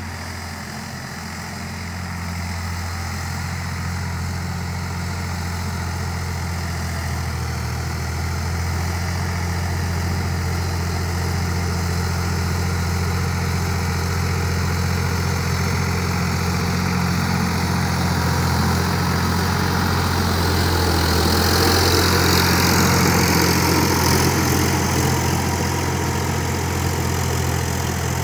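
Sonalika DI-50 RX tractor's diesel engine running steadily while pulling a rotary tiller through soil, a continuous low drone. It grows louder as the tractor comes closer, loudest about three-quarters of the way through, then eases slightly.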